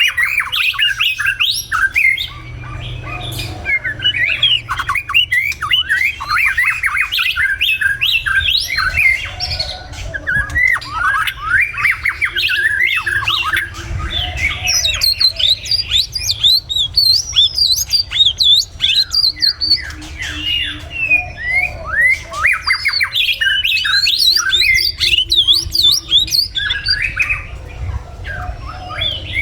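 White-rumped shama singing: a long run of rapid, varied whistled phrases sliding up and down in pitch, with only brief pauses between them.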